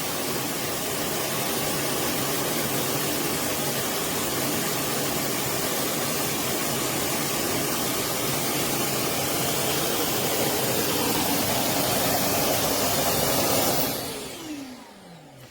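MONSGA robot vacuum's self-emptying base station running its suction motor, a very loud, steady rush of air as it sucks the dust out of the robot's bin into the station. Near the end the motor spins down with a falling whine.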